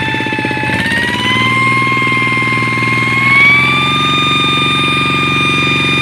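TL 800 tractor running with a high-pitched whine over its engine note. The whine rises in pitch in steps over the first few seconds, then holds steady.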